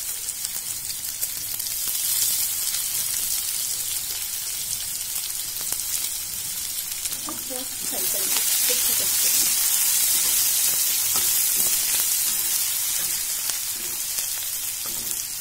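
Chopped onions sizzling in hot ghee in a kadhai, stirred with a steel spatula. The sizzle grows louder about eight seconds in as more onion is tipped in.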